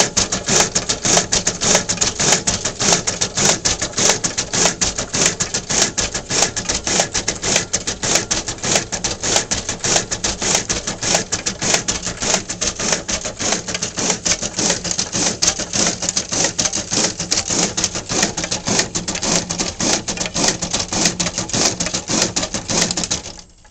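Pitney Bowes W700 (Secap 11K) addressing printer feeding and printing postcards: a rapid, steady clatter over a low motor hum. It stops abruptly near the end as the machine is switched offline.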